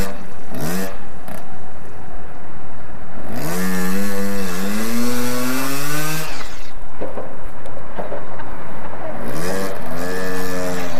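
Small child's dirt bike engine revved hard, its pitch rising, as the rear wheel spins in the dirt, with short throttle blips at the start and a second rev near the end.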